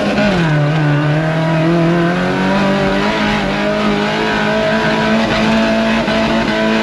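A vehicle engine held at high revs under load. Its pitch dips about half a second in, climbs back over the next two seconds, then holds steady.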